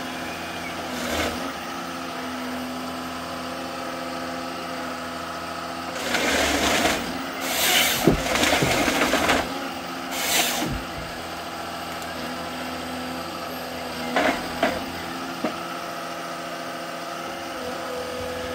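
Rottne H11E forest harvester running steadily, with loud bursts of noise from its harvester head about six to eleven seconds in, and two short ones later, as the head feeds, delimbs and cross-cuts a stem.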